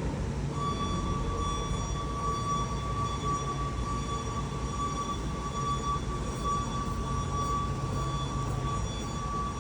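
Vehicle engine running steadily, with a steady high-pitched whine that comes in about half a second in.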